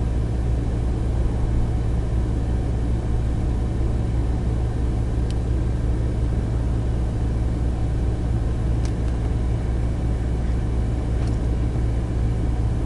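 Steady low rumble inside a taxi's cabin: the car's engine and road noise.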